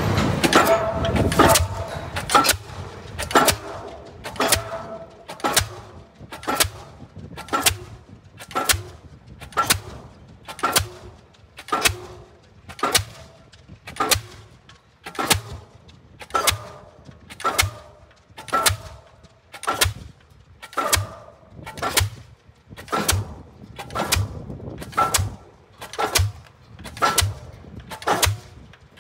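Diesel pile hammer hanging from a crane, driving a concrete sheet pile with a steady run of sharp blows at about one a second, each with a short metallic ring.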